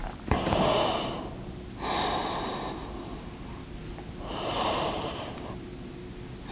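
A yoga instructor breathing deeply and audibly while holding a pose: three long breaths, the second following straight on from the first and the third after a short pause.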